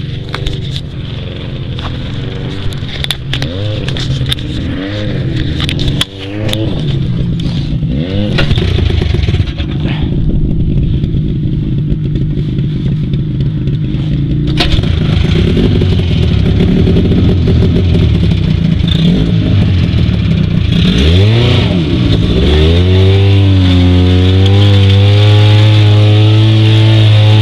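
Buran snowmobile's two-stroke engine running under load as it tows a heavily laden sled over rough broken ice. The revs rise and fall, with sharp knocks and scraping in the first few seconds. Near the end it revs up and holds a steady high pitch.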